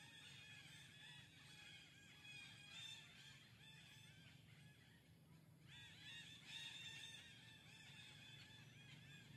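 Young macaques squealing: a rapid string of short, high-pitched overlapping calls that eases off briefly a little past the middle and comes back stronger near the six-second mark.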